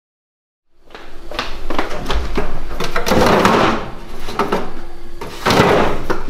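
Silence for almost a second, then the plastic drawer of an upright freezer being pulled open, with clunks, rattles and scraping as a phone is lifted out of it, over a faint steady hum.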